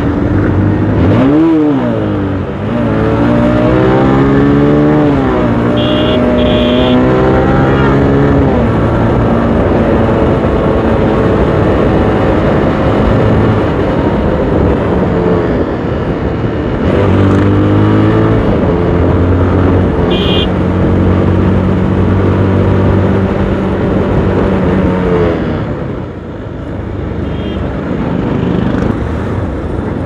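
Motorcycle engine revving hard up through the gears while riding, its pitch climbing and then dropping at each gear change several times, over a steady rushing noise.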